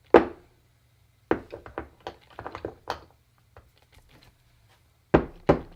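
Sharp knocks and taps on engine parts as a part that had seemed stuck is worked loose: one hard knock at the start, a run of lighter taps from about one to three seconds in, and heavy knocks again near the end.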